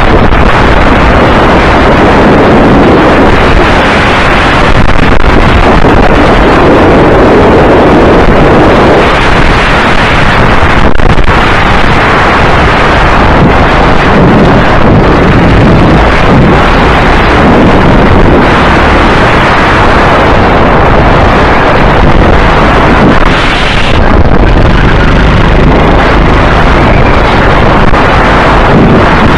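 Go-kart engine running at racing speed through the corners, heavily mixed with wind buffeting on the onboard microphone; loud and steady throughout.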